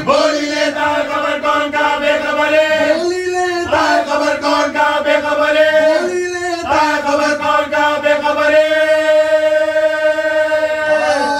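Men chanting a noha, an Urdu mourning lament, in long, drawn-out notes, with short breaks for breath about three and a half and six and a half seconds in.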